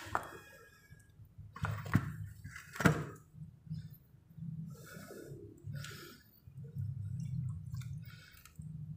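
A few sharp knocks, the loudest about three seconds in, and short wet splashing noises in the muddy water around the pipe, over a low hum.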